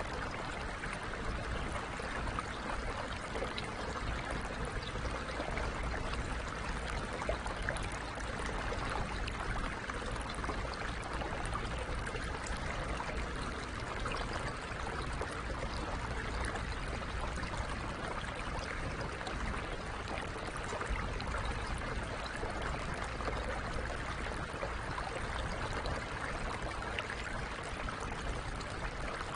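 The Virgin River rushing steadily over its bed.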